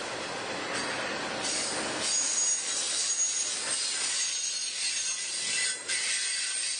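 Freight train cars rolling past, giving a steady rail noise with a high, thin squeal of wheels on the rail that comes and goes.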